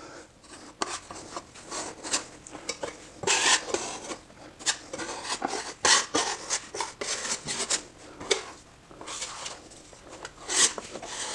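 Narrow drywall knife scraping wet joint compound over a paper-faced drywall patch in short, irregular strokes, pressing excess mud out from behind the paper edges.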